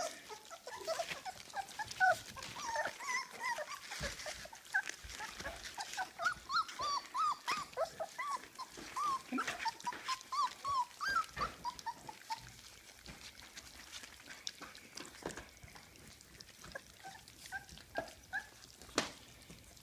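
Weimaraner puppies about four weeks old whimpering and squeaking as they eat gruel from a pan, with many short high calls that rise and fall in quick succession during the first half and fewer later, over soft clicks of eating.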